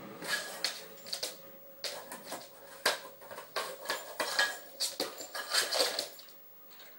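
Irregular clatter and clicking as an Alaskan Malamute puppy bats and pounces on a measuring cup on a laminate wood floor, its claws skittering on the boards. The sharpest knock comes about three seconds in, and things go quieter near the end.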